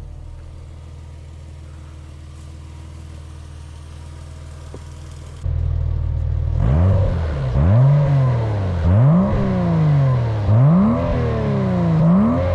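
Porsche Boxster 986 flat-six engine idling steadily, then, after a sudden jump in loudness about five seconds in, revved four or five times, each rev rising quickly in pitch and falling back more slowly.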